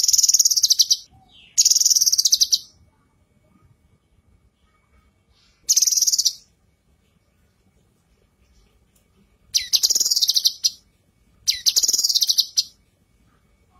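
Female cucak kinoi singing in five short bursts of rapid, high-pitched chattering notes, each about a second long, with pauses of one to three seconds between them.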